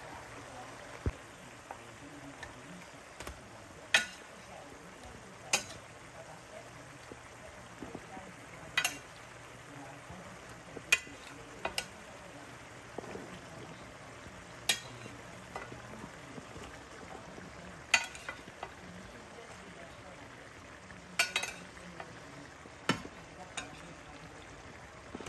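Oil and sauce sizzling steadily in a frying pan as pieces of salted fish are laid in, with a sharp click every two to four seconds.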